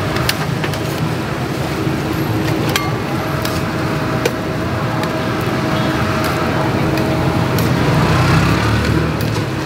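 Steady street traffic noise, with a vehicle's low rumble swelling about eight seconds in. Scattered sharp clicks from a metal spatula scraping and tapping the steel griddle as mini pancakes are flipped.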